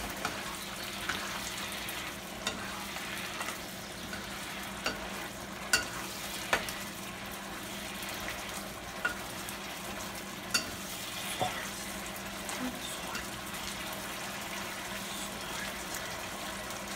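An onion-and-coconut-milk sauce sizzles steadily in a metal skillet, with a few sharp clicks now and then from the metal spoon stirring it against the pan.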